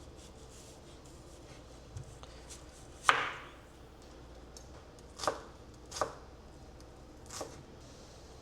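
Kitchen knife chopping food on a cutting board: a handful of separate, unhurried strokes, the loudest about three seconds in.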